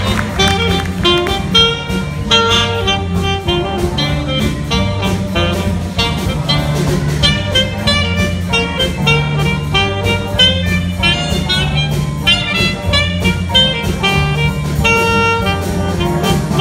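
A school jazz band playing a swing tune, with a standing saxophone soloist playing a quick run of notes over the band's bass line and drums.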